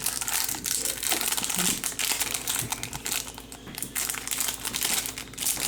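Foil trading-card pack wrapper crinkling in the hands, a dense, irregular crackle as a Topps Chrome pack is handled and opened.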